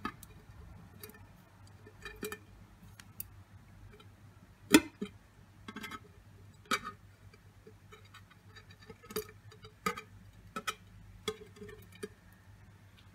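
Tweezers clicking and tapping against the inside of a tin can while picking out a live cricket, the can shifting as it is tilted: irregular sharp clicks, with one louder knock about five seconds in.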